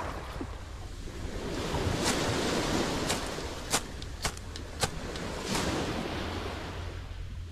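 Surf washing on the shore, swelling and easing, with about half a dozen sharp pops scattered through the middle.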